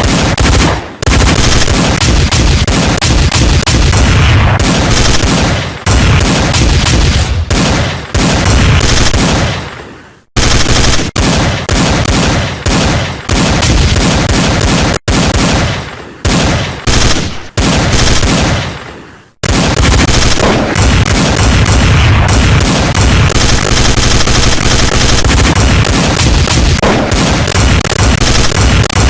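Gunfire sound effect, mostly rapid machine-gun shots, played loudly as the alert sound of a forex trend indicator. It breaks off about ten, fifteen and nineteen seconds in and starts again each time.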